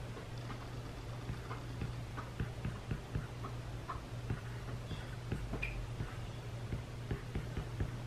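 Apple Pencil tip tapping and clicking on an iPad's glass screen in quick, irregular strokes while handwriting, over a steady low hum.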